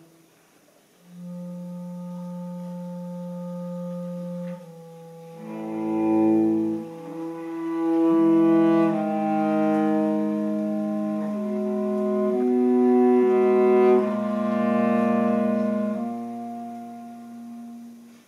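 Clarinet and cello playing a slow duet of long held notes. After a brief pause a single low note is held from about a second in, two voices overlap from about five seconds in, and the music fades away near the end.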